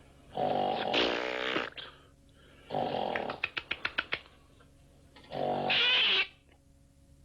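Loud snoring: three long snores about every two and a half seconds, the middle one breaking into a fast rattling flutter.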